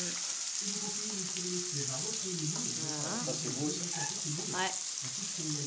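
Sausages and vegetables sizzling steadily on a hot plancha griddle, with low voices talking in the background.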